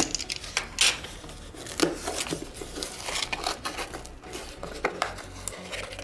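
Cardboard shipping box being opened by hand: the packing tape is slit with a cutter and the flaps are pulled and folded back, giving irregular scrapes, taps and rustles of cardboard and tape.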